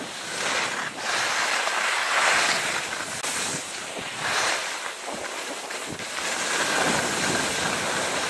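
Rushing hiss of skis sliding and scraping through snow on a fast descent, with wind buffeting the microphone. It swells and eases in several surges.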